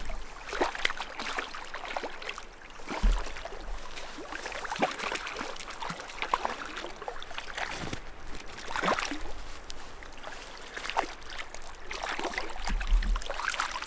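A hooked brown trout splashing at the river surface again and again as it is played in close and netted, over the steady rush of the rapids. Two dull thumps come about three seconds in and near the end.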